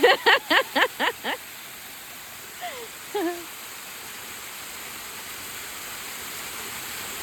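Steady rushing of a waterfall. In the first second and a half a person laughs in about six quick bursts, and a short vocal sound comes about three seconds in.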